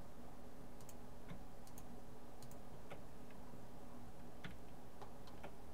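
Computer mouse and keyboard clicks, irregularly spaced and some in quick pairs, over a steady low background hum.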